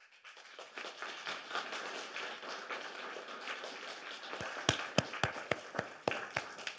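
Audience applauding: a dense patter of clapping that starts suddenly, with a few louder single claps close by in the second half, thinning out near the end.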